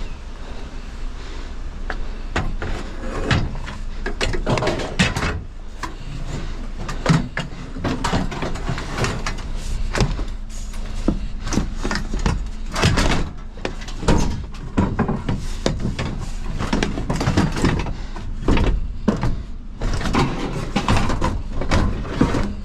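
Repeated irregular clanks, knocks and scrapes of scrap metal being shifted and wedged into a loaded trailer.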